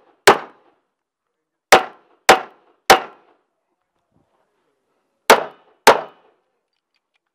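Rock Island Armory 1911 pistol fired six times. One shot comes just after the start, then three about half a second apart around two seconds in, and after a pause of over two seconds a final pair about half a second apart.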